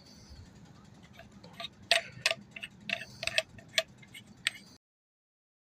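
Irregular small metallic clicks and taps, about a dozen over three or four seconds, from the parts of a take-apart multi-tool survival axe being handled. The sound cuts off abruptly near the end.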